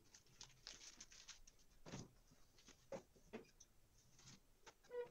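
Faint rustles and a few soft taps: hands lifting and folding a thin cut sheet of pastry dough on a tabletop.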